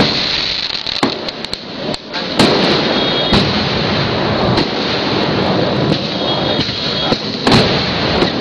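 Fireworks display: aerial shells bursting one after another over a dense, continuous crackle. Several sharp bangs stand out, the loudest about two and a half seconds in and again about a second before the end.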